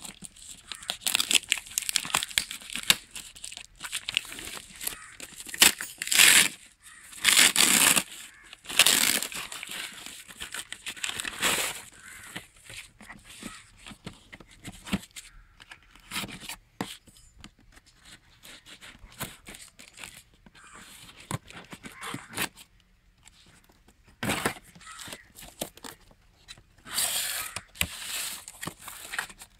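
Paper wrapping and brown packing tape being cut and torn off a parcel, in irregular bursts of tearing and crinkling with handling clicks, then cardboard box flaps being pulled open.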